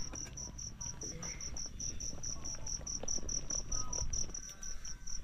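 An insect chirping steadily: a high note pulsing about six times a second, over a low rumble.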